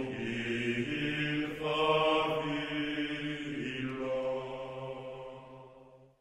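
Orchestral film score with deep voices chanting sustained, held chords that shift a few times, then fade out near the end.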